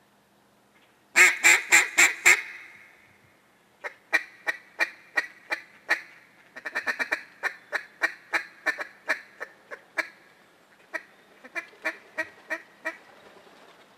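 Duck quacking in the manner of a mallard hen. A burst of five loud quacks comes about a second in. From about four seconds in there is a long run of spaced quacks, with a quick chattering run near the middle, and the quacks trail off near the end.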